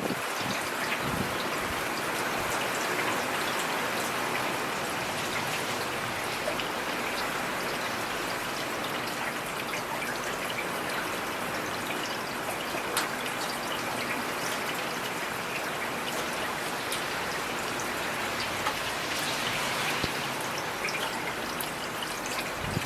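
Heavy rain falling steadily: a dense, even hiss of rain with many small, sharper drop ticks scattered through it.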